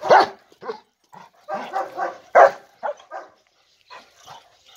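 German Shepherd dogs barking in a string of short barks, the loudest at the start and about two and a half seconds in, falling off to faint sounds after about three and a half seconds.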